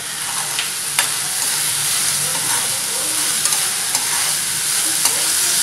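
Chopped onion, capsicum, garlic and tomato sizzling in oil in a wok while being stirred, with a steady hiss and a few sharp clicks of the stirring spoon against the pan.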